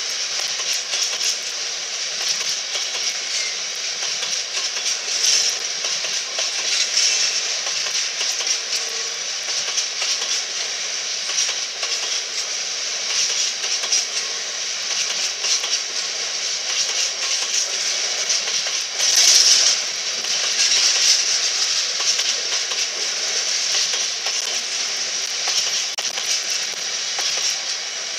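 Freight train of covered hopper wagons rolling past: a steady rush of steel wheels on the rails, full of small clicks and rattles. It swells briefly about two-thirds of the way through.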